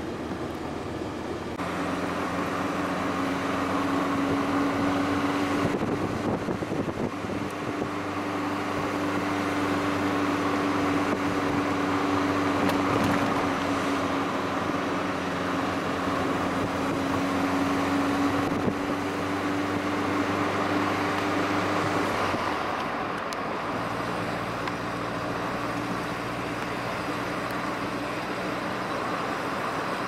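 A car driving along a road: a steady engine hum over road noise. The engine note drops lower about two-thirds of the way through.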